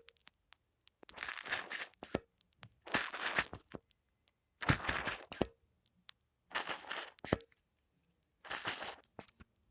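Foam being squeezed and worked close to the microphone in five crackly, crunching bursts, each about a second long and roughly two seconds apart.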